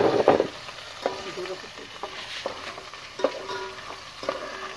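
Ginger and garlic sizzling in hot oil in a steel pot, stirred with a metal slotted spoon. The spoon clinks against the pot about once a second, loudest in a scraping clatter at the start.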